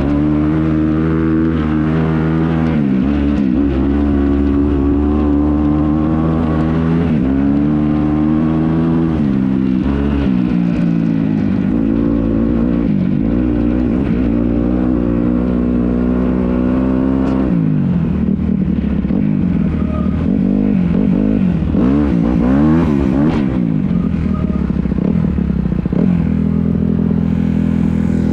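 Dirt bike engine on a trail ride, revving up and dropping back again and again as the rider works the throttle and gears, its pitch climbing and falling every couple of seconds.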